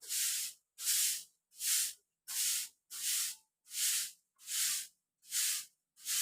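Short hissing bursts repeating at a steady rhythm, about three every two seconds.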